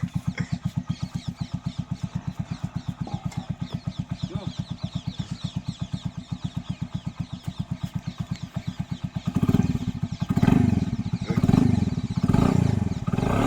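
Motorcycle engine idling with an even, rapid putter. About nine seconds in, the throttle is blipped, the engine swelling and dropping back about once a second.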